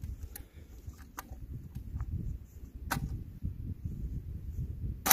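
A 12-gauge AR-style semi-automatic shotgun's action being worked after a misfire, with sharp metallic clicks as the dud shell is cleared and another chambered: a few light clicks, a clearer one about three seconds in and the loudest at the very end. A low steady rumble runs underneath. The misfire is put down to the shells' very hard primers.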